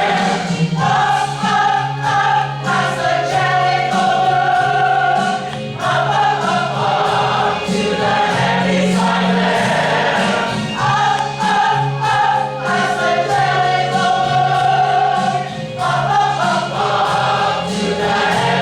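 A choir singing with instrumental accompaniment, in phrases of long held notes.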